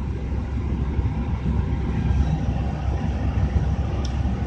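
Steady low rumble of aircraft cockpit background noise, with faint steady tones above it and a brief click about four seconds in.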